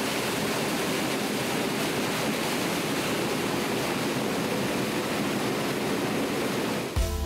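Pulper rotor churning shredded milk cartons in water: a steady rushing, as the blades beat the paper fibres loose from the cartons' plastic film. Music comes in near the end.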